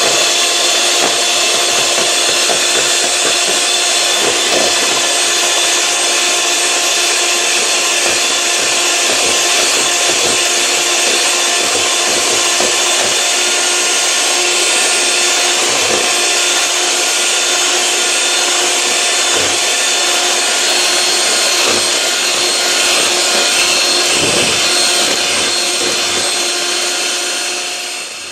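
De'Longhi Jolly electric hand mixer running at a steady speed, a constant whine, its beaters whisking eggs and sugar in a bowl; it is switched off at the very end.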